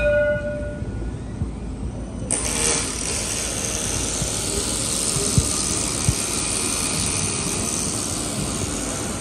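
Light rail vehicle passing close by: a low rumble, then a steady rushing noise that comes in suddenly about two seconds in and holds. A short tone sounds right at the start.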